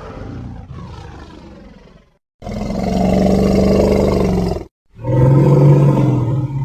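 Megalania (giant monitor lizard) creature sound effect: the tail of a call dies away, then two long, deep roars follow. The first lasts about two seconds and cuts off sharply; the second is lower-pitched and trails off near the end.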